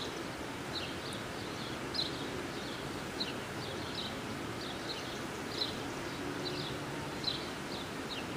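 Small bird chirping: short, high chirps repeating irregularly about every half-second to a second over a faint, steady outdoor background.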